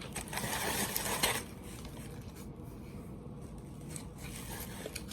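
A brief rustling, scraping noise for about the first second and a half, then only a faint low hum.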